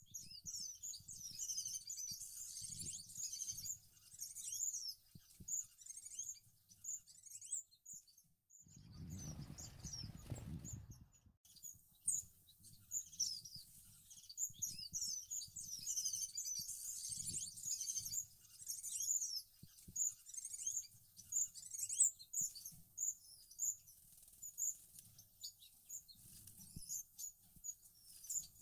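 Gouldian finches chirping: a busy run of short, high-pitched calls. About nine seconds in, the calls pause for roughly two seconds under a low, muffled noise.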